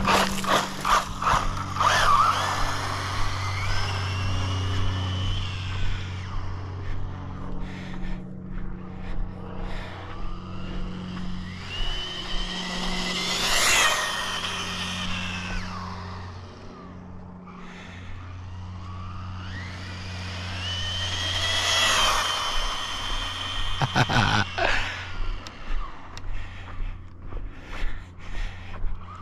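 Electric motor of a 1/14-scale RC desert buggy on a 3S LiPo whining up in pitch as it speeds up and passes, three times, each pass rising to a peak then dropping away, over a steady low hum.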